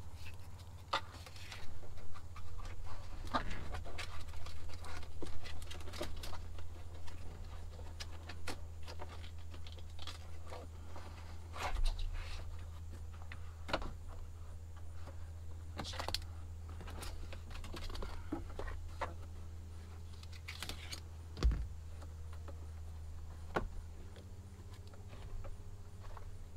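Ball bungee cords being worked through the holes of a fabric sunshade by hand: scattered clicks, rattles and rustles over a steady low hum.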